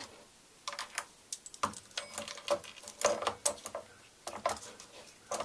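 Chainsaw cutting chain clicking and rattling as it is handled and fitted around the bar and the clutch drive gear: a run of small, irregular clicks.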